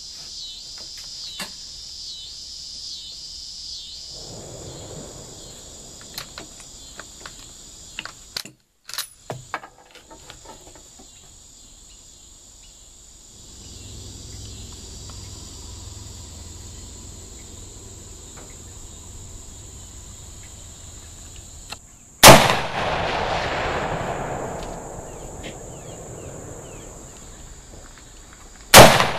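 Two rifle shots from a Type 53 bolt-action carbine in 7.62x54R, about six and a half seconds apart. Each is a sharp, very loud crack that rings out and dies away over a second or two.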